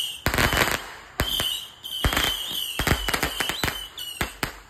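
Ground-launched consumer fireworks going off: a string of sharp bangs, roughly one or two a second, with a fizzing hiss between them.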